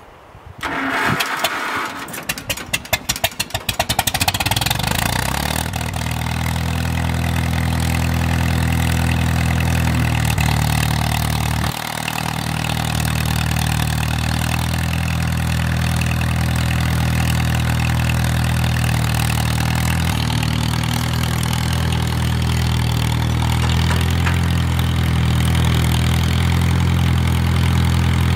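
Old farm tractor's engine being started: it is cranked, sputters unevenly for a couple of seconds, catches about four seconds in, and then runs at a steady idle.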